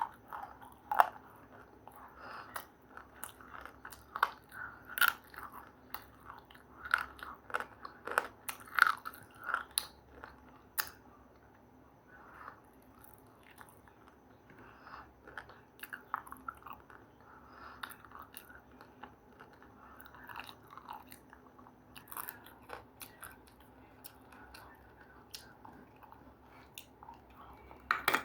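Crunchy food being bitten and chewed close to the microphone: sharp, loud crunches come thick and fast for the first ten seconds or so, then the chewing goes on softer and sparser.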